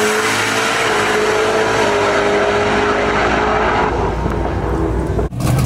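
Turbocharged first-generation Camaro engine at full throttle on a drag-strip pass. The note holds high and steady as the car pulls away, and the highs fade as it gets far down the track. The sound cuts off abruptly near the end.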